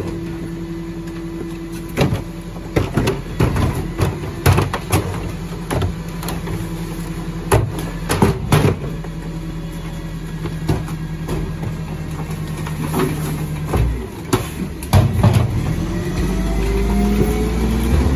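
Garwood rear-loader garbage truck running, its engine hum steady while the rear compactor cycles, with repeated clanks and bangs from wheelie bins and the packer blade. About fifteen seconds in the engine revs up, rising in pitch as the truck pulls away.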